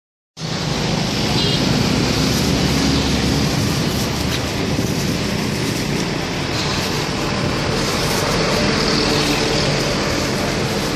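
Steady street traffic noise with a low engine hum, starting abruptly after a brief silence.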